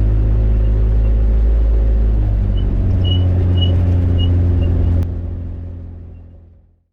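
Rotax 582 two-stroke engine of an X'Air microlight running steadily, with a few short, faint high beeps in the middle. About five seconds in the sound turns duller and fades away.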